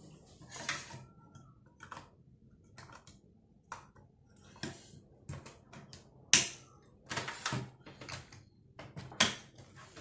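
Irregular plastic clicks, snaps and rattles of an action camera and its mount being handled and clipped onto the top mount of a bicycle helmet, with the loudest clack about six seconds in and another sharp one near nine seconds.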